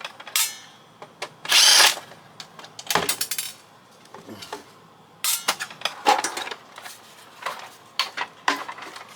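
Power drill spinning briefly to back out a screw from a plastic fax machine housing, followed by clicks, knocks and plastic clatter as the parts are handled.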